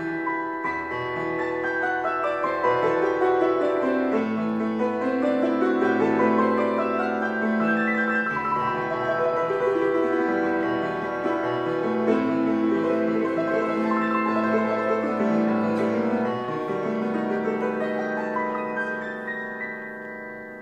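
Piano music with sustained notes, flowing runs and a bass line, fading out near the end.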